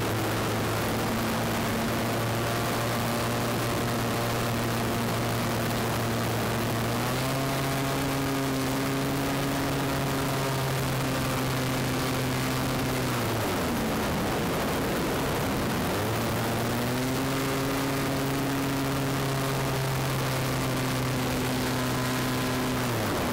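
Extra 300 aerobatic plane's six-cylinder Lycoming engine and propeller during aerobatics, heard on board over wind noise. A steady drone steps up in pitch about seven seconds in, then falls away sharply around the middle. It comes back up a few seconds later and drops again near the end.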